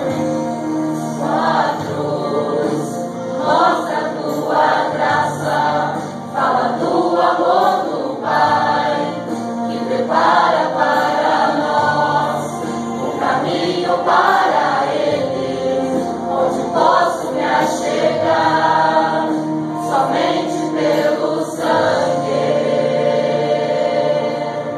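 A choir singing a gospel hymn over sustained instrumental accompaniment, in phrases of a second or two.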